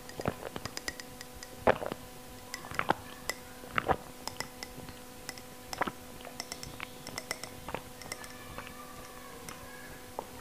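Raw quail eggs being gulped down from a glass: irregular wet swallowing and mouth clicks over a faint steady hum.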